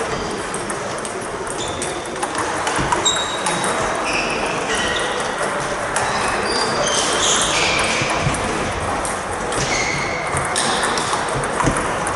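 Table tennis balls clicking off bats and bouncing on the tables in quick rallies on several tables at once, each hit a short sharp ping, echoing in a large sports hall.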